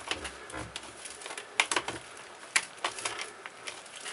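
Plastic clips of a Dell Studio 1555 laptop's screen bezel snapping into place as the frame is pressed on by hand: a series of sharp, irregular plastic clicks.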